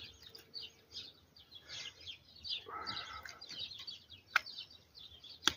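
Small birds chirping over and over in the background. Two sharp clicks sound near the end.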